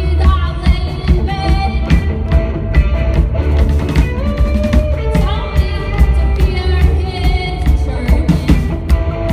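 Live rock band playing: drum kit, bass and electric guitar with a singing voice, loud and driving.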